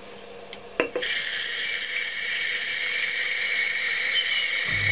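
A click, then a water tap opened about a second in, water running in a steady hiss. A low hum starts near the end.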